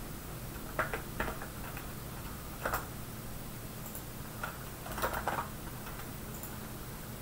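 Computer keyboard keys and mouse buttons clicking as numbers are entered into fields: a handful of sharp, separate clicks with a quick cluster about five seconds in, over a faint steady hum.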